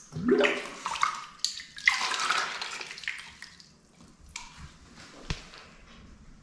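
Water poured from a plastic cup splashing into a cup and the bathtub water, in several gushes over the first three seconds or so, then dying down to faint trickling and lapping. A single sharp knock about five seconds in.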